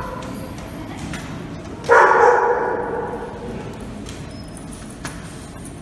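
A dog barks once, loudly, about two seconds in, the bark echoing in a hard-floored room; otherwise low room noise from the dogs moving about.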